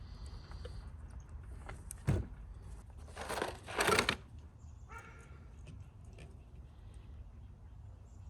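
Hand work on marine toilet parts during disassembly: a sharp knock about two seconds in, then a louder rough rustling scrape lasting about a second, followed by faint scattered clicks.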